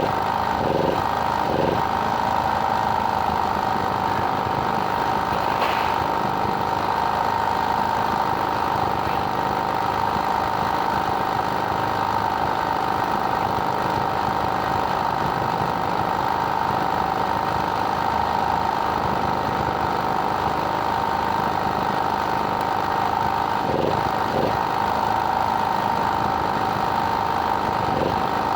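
Steady, unchanging machine noise, like a small engine running.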